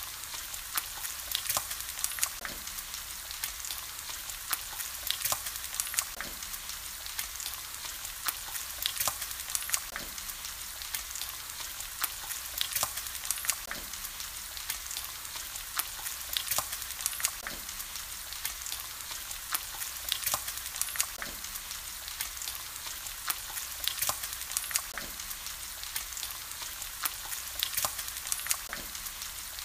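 Bacon strips frying in their own fat on a flat griddle: a steady sizzle with frequent small crackles and pops.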